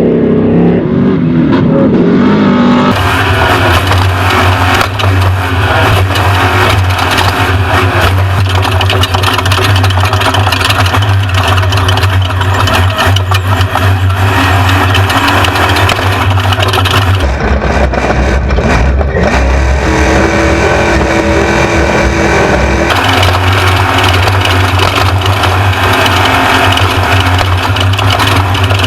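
Off-road race truck's engine running hard under load, a loud steady drone. Its pitch and tone change abruptly about 3 seconds in, again about 17 seconds in, and back about 23 seconds in.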